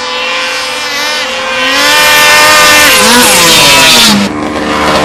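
Snowmobile engine revving, a high whine that grows loud about two seconds in, sweeps down in pitch as the sled passes, and falls away a little after four seconds.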